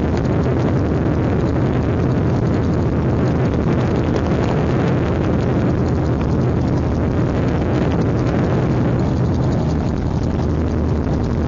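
MT-03 gyroplane's engine and pusher propeller running steadily in cruise flight, heard from on board as an unbroken drone with rushing air over it.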